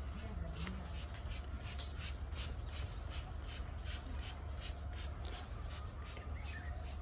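Water spray splashing on a tractor, pulsing about three times a second over a steady low hum.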